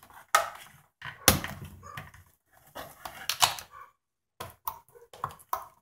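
Small scissors snipping through the plastic blister and card of a toy package: a series of sharp clicks and short crackles with pauses between them, coming faster near the end.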